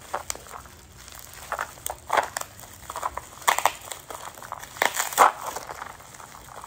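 Orange plastic bubble-wrap packaging crinkling and crackling in the hands as it is unwrapped, in irregular bursts, the loudest a little after five seconds in.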